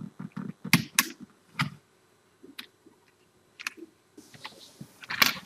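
About half a dozen sharp clicks and light knocks at uneven intervals, from someone working a computer at a desk. A faint hiss comes in near the end.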